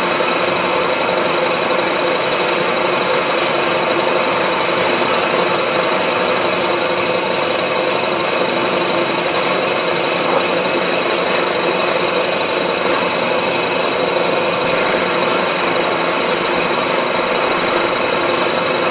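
Knee milling machine running steadily, its cutter working through steel as it mills a slot in a wood chipper blade. A thin high squeal comes and goes near the end.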